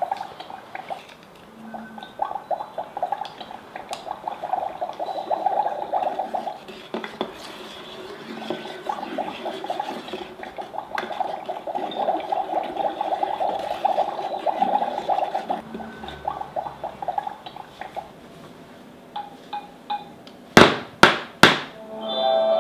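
A plastic wand stirring water in a Magic Mixies toy cauldron: a rapid swishing, clicking churn in two long spells. Near the end come three sharp knocks, then the cauldron's electronic music begins.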